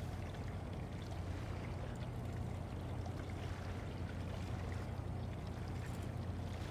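Steady low drone of the helicopter destroyer JS Hyuga under way, with a faint hiss over it.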